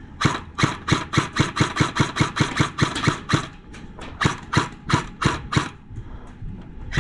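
Airsoft gun firing rapid single shots, about three to four sharp cracks a second for over five seconds, then stopping near the end.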